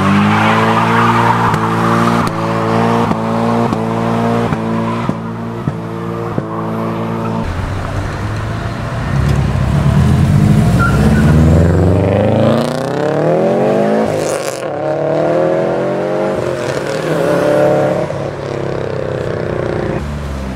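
Modified cars' engines driving off one after another. First, an engine is held at steady high revs, cutting out briefly about twice a second. Then engines rise and fall in pitch as other cars rev and accelerate away.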